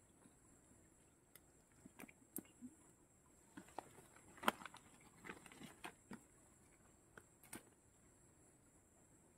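Faint, scattered crackles and clicks of hands handling a woven plastic sack and a freshly hooked small fish while the hook is worked free. The loudest crackle comes about four and a half seconds in.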